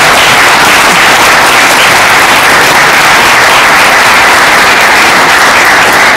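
A roomful of people applauding, loud and steady, with many hands clapping at once.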